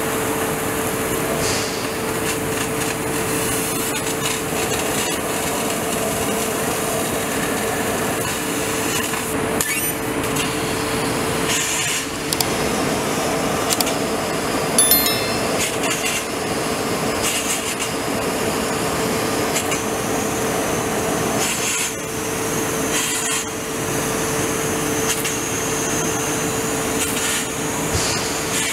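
Laser cutting machine cutting steel plate: a steady hiss with a constant hum under it, broken every few seconds by short crackles.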